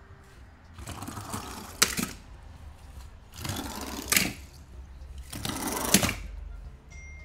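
Handling of toy cars and their packaging: three rasping strokes about a second long, each ending in a sharp click.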